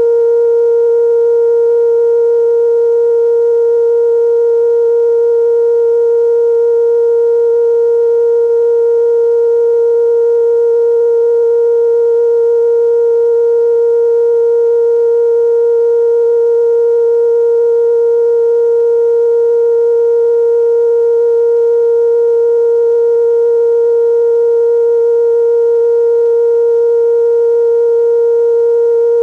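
Steady television test tone after the station's sign-off: one unwavering pitch with faint overtones, held without change.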